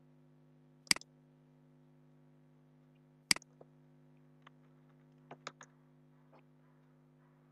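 Computer mouse and keyboard: two sharp clicks about a second in and a little over three seconds in, then half a dozen lighter keystrokes as a word is typed. A steady low hum runs underneath.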